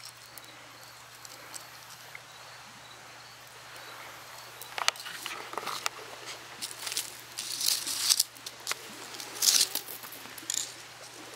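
Loose gravel crunching and rattling as it is scraped and stirred with a small plastic utensil: faint at first, then a run of short scratchy scrapes and clicks starting about halfway through.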